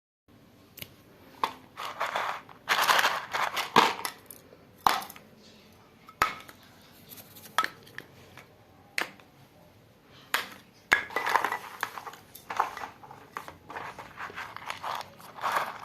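Toys and packaging being handled and unpacked: irregular sharp clicks and knocks of hard plastic mixed with short bursts of crinkling.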